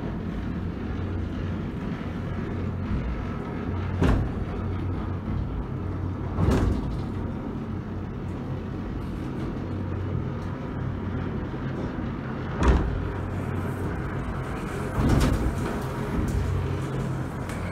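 Funicular car running on its cable-hauled incline, heard from inside the cabin: a steady low hum with four heavy clunks at uneven intervals.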